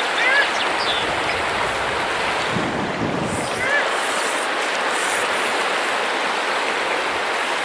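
Shallow stream running over gravel in a steady rush of water, with a brief low buffet of wind on the microphone about three seconds in.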